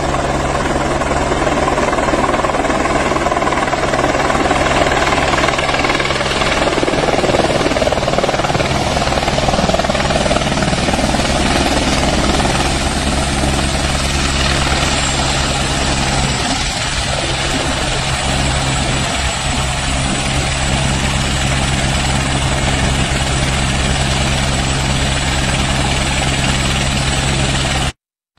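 Light helicopter setting down on grass and then running on the ground, its rotor and turbine engine making a loud, steady drone.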